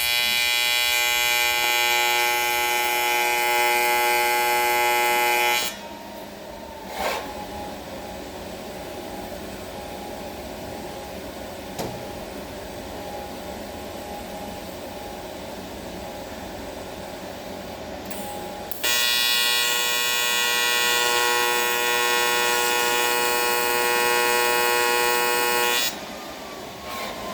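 AC TIG welding arc on aluminum buzzing steadily: two welds of about six and seven seconds, each arc starting and cutting off abruptly, with a quieter background hum between them.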